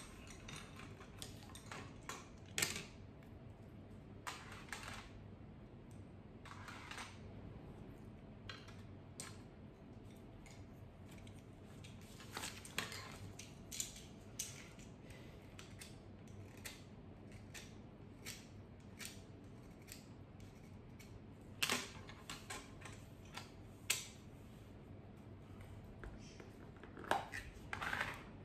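Colour pencils scratching on paper at an irregular pace, some strokes about half a second long, with light taps and clicks as pencils are handled on the desk; the sharpest ticks come about 22 and 24 seconds in.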